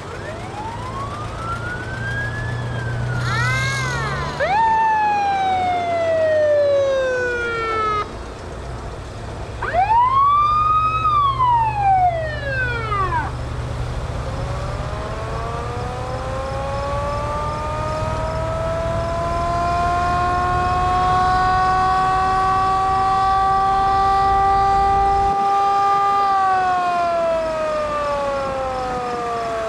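Fire truck sirens winding up and falling in pitch, several overlapping: a rise and fall within the first few seconds, another about ten seconds in, then a long slow climb that holds and drops away near the end. Truck engines rumble underneath as the trucks pass.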